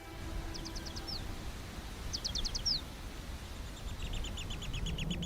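A bird calling over a low rumble of outdoor background noise. Twice it gives a quick burst of about five high notes that ends in a falling slur. About four seconds in, it starts a longer run of rapid high notes.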